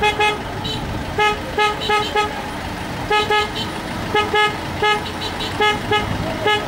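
Car horn tooting in short beeps, all on one pitch, in quick runs of two or three, over a low rumble of traffic.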